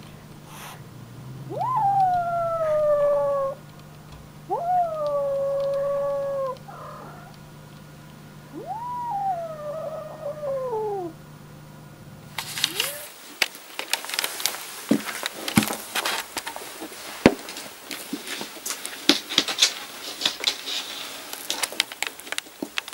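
A frightened kitten gives three long meows, each jumping up sharply in pitch and then sliding slowly down. After a cut about 13 seconds in, a scattered run of sharp clicks and taps follows.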